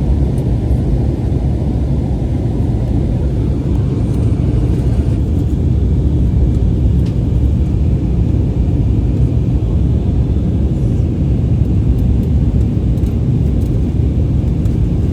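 Steady low rumble of jet engines and rushing airflow heard inside the cabin of an Airbus A320-family airliner in flight, shortly after takeoff.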